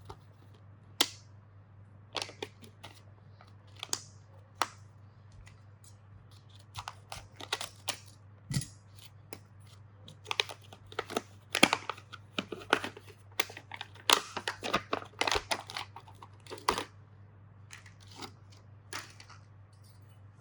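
Hand work on small parts: irregular clicks, scrapes and crinkling rustles, a few at first and then a dense run in the middle, over a faint steady low hum.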